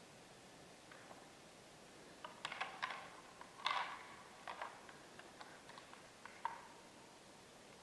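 Faint clacking of two young bull moose's antlers as they spar in the rut: sharp clicks and clatters in short bunches, the loudest a little past two seconds in and just before four seconds, with single knocks later on.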